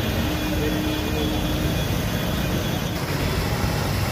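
Traffic driving through a flooded street: vehicle engines running and tyres pushing through standing water. The sound changes character about three seconds in.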